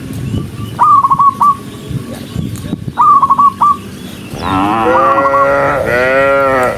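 Cattle in a herd mooing: two long, wavering moos back to back in the second half. Before them come two short, trilling high chirps, about a second and three seconds in.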